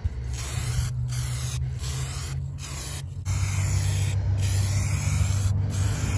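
Aerosol can of SEM high-build primer spraying a first coat onto a car's rocker panel. The hiss comes in passes, breaking off and restarting several times. A steady low hum runs underneath.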